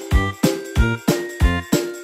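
Background music with a steady, bouncy beat of about three beats a second and a moving bass line.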